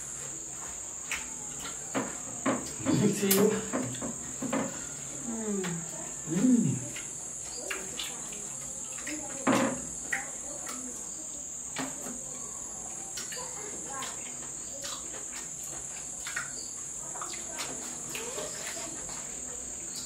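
Crickets chirring steadily and high-pitched, with close-up eating sounds over them: irregular mouth clicks and smacks, and a few short hummed voice sounds in the first half.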